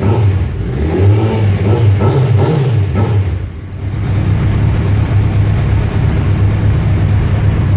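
Inline-four sport motorcycle engine through aftermarket exhausts, blipped up and down a few times, dipping briefly after about three seconds, then running at a steady speed.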